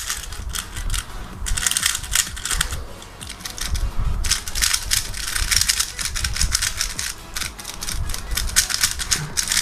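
Plastic 3x3 speed cube being turned rapidly to break it in, its layers making a dense run of clicking and clacking, with a quieter stretch about three seconds in. The cube is freshly lubricated.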